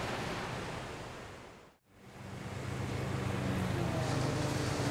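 Surf washing on a beach, fading out. After a moment's silence comes sea ambience of wind and water, with a low steady motor hum.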